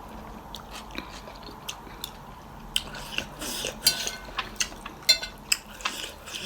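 Spoons and chopsticks clicking and clinking against bowls and plates during a meal, with soft eating sounds. The clicks are sparse at first and come thick and fast after a couple of seconds, some of them ringing clinks.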